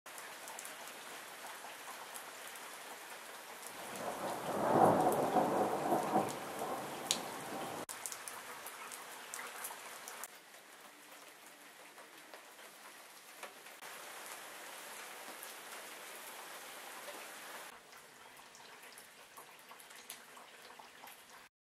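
Thunderstorm: steady rain falling, with a rumble of thunder swelling about four seconds in and dying away by about eight seconds, the loudest part. The rain carries on after it, stepping down abruptly in level twice.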